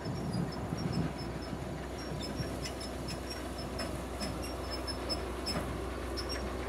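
Harvest machinery running steadily with a constant low hum, while a light, high ticking repeats a few times a second.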